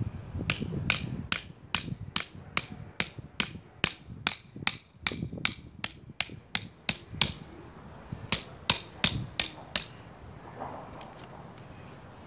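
A hatchet striking the spine of a Mora knife, batoning it down into the end of a wooden stick to split it: a steady run of sharp metal-on-metal taps, about two and a half a second, then a short pause and five more taps.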